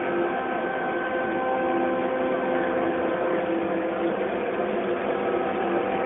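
Radio-control model Tiger tank driving, giving a steady mechanical hum of several held tones.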